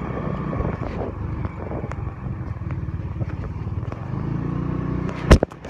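Moped engine running with rushing air while riding, a steady low rumble. Near the end, one sharp loud knock, after which the sound briefly drops away.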